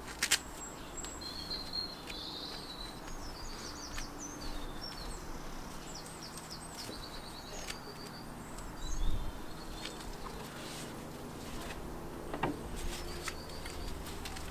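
Small birds chirping and twittering in short trills, with rustling and a few sharp clicks as padded gloves are pulled on, and a low thump about nine seconds in.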